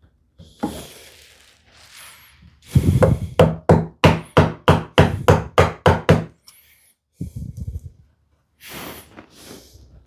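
Carving gouge being struck into wood in a quick run of about a dozen sharp knocks, roughly three a second, chopping out a curved groove, followed by a few lighter taps.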